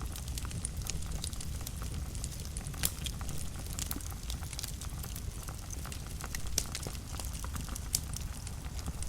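Wood fire burning in a fireplace: a steady low rumble of flames with frequent crackles and snaps, and a few louder pops near three and eight seconds in.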